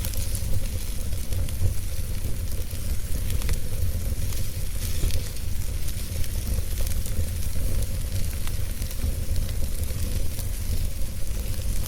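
Wood fire burning steadily, with a constant hiss and frequent small crackles and pops, over a steady low rumble.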